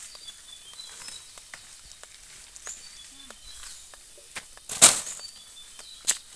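Dry leaves and undergrowth crackling and rustling, with one loud crunch about five seconds in and a smaller one near the end, over faint, short, high bird chirps.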